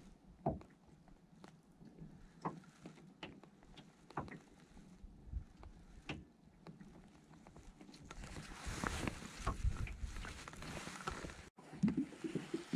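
Small waves lapping and knocking against the hull of a drifting fishing boat, with a soft knock every second or two. Over the last few seconds a steadier rush of wind and water noise builds, and there are a few louder knocks near the end.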